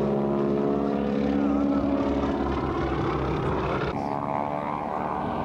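Radial engine of a Boeing Stearman wing-walking biplane running at display power overhead, a steady propeller drone. Its pitch steps up suddenly about four seconds in.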